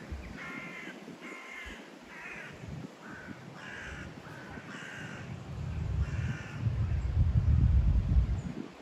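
A crow cawing repeatedly, a series of harsh caws about half a second apart. In the second half a gust of wind buffets the microphone with a loud low rumble.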